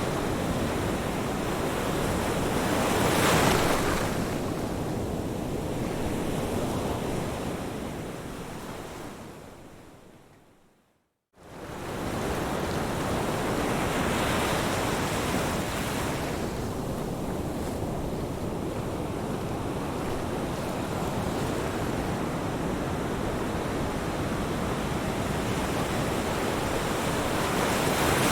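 Ocean surf: a steady rush of waves washing ashore, swelling as waves break about three seconds in, again near the middle and at the end. About ten seconds in the sound fades out to silence and then cuts back in suddenly.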